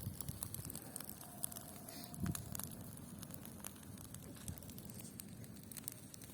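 Wood campfire crackling faintly, with scattered irregular pops and snaps.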